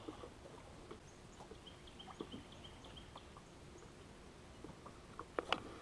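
Quiet, with faint scattered clicks and taps and two sharper clicks near the end, plus a brief run of faint high chirps about two seconds in.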